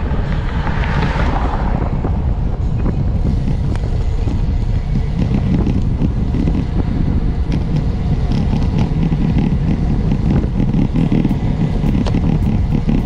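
Wind buffeting the microphone of a camera on a moving bicycle, a loud steady rumble, with a car passing close by about a second in.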